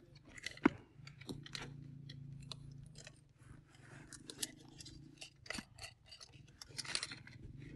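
Small clicks and rustling as a camping lantern is fastened onto a backpack by its handle, with one sharp click less than a second in.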